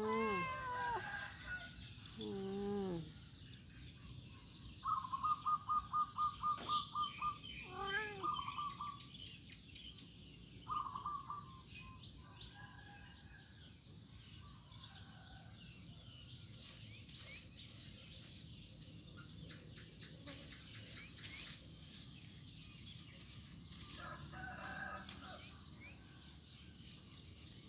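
A cat meows twice in the first few seconds. Then a chicken clucks in a quick run of about ten even notes around five seconds in, followed by a few more clucking calls over the next several seconds; after that only faint clicks and rustles.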